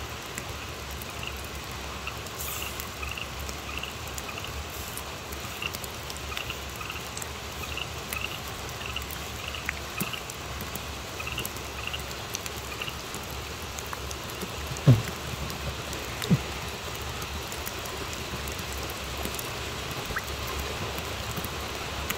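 Steady rain falling on wet ground. A faint high chirp repeats about twice a second through the first half, and two sharp knocks come about 15 and 16 seconds in.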